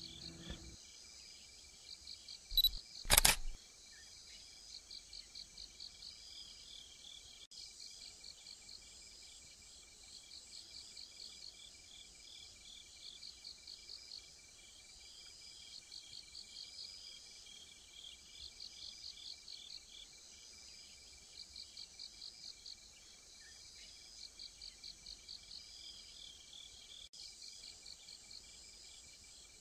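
Crickets chirping in pulsed trills, in groups about a second long that repeat every second or two, over a steady faint high tone. About two and three seconds in there are two loud, brief knocks, the second the louder.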